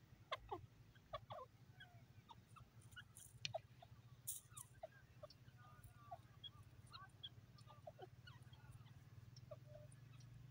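Faint, scattered short bird chirps and soft clucks over a low steady hum.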